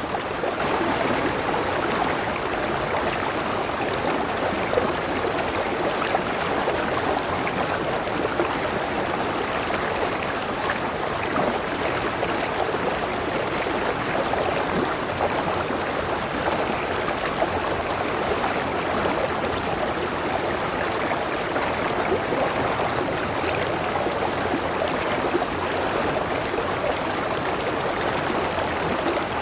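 River water flowing over a waterfall: a steady rush of water.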